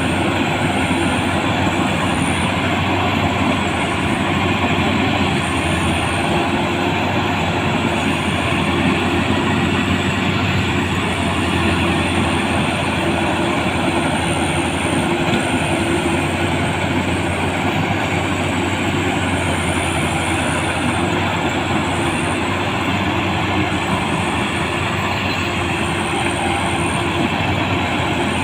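Rice combine harvester running steadily under load, its engine and threshing machinery giving a loud, continuous mechanical din.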